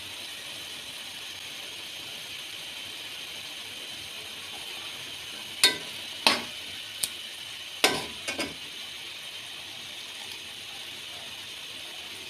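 Minced meat frying in oil in a metal pot with a steady sizzle. From about halfway through, a metal spoon stirring it clinks against the pot half a dozen times.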